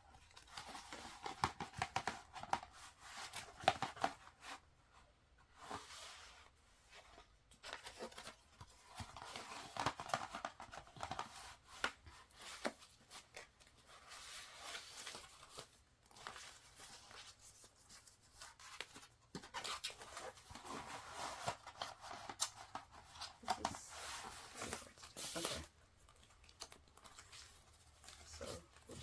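Album packaging being torn open and handled: irregular tearing and crinkling that comes and goes, with small clicks.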